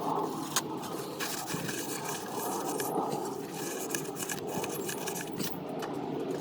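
A rag rubbing and scraping over oily oil-filter parts as old, burnt oil is wiped off, steady and continuous with a few light clicks and knocks.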